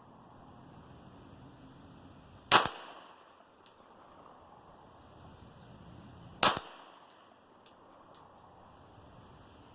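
Two single shots from a .40-calibre MechTech CCU pistol-caliber carbine, about four seconds apart, each with a brief echo.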